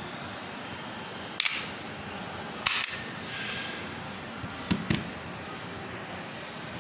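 HFC PT92 gas-blowback airsoft pistol firing three single shots a second or two apart, each a sharp crack; the last comes as two cracks close together.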